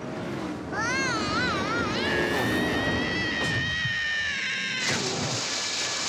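Cartoon sound effects: a high warbling wail, then a long held tone that slowly falls in pitch, cut off about five seconds in by a splash into water.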